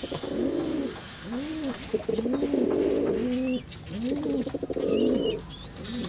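Domestic pigeon cooing over and over, about one low rising-and-falling coo a second.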